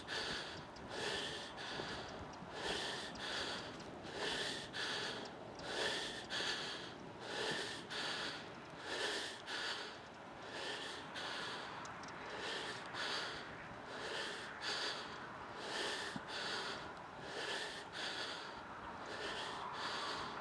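A person breathing hard close to the microphone, quick in-and-out breaths at about one a second.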